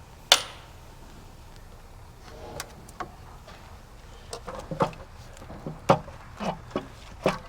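Hand tools and metal engine parts clinking and knocking as a bracket and the upper intake are worked loose. There is one sharp click about a third of a second in, then a run of irregular clicks and clunks, some briefly ringing, through the second half.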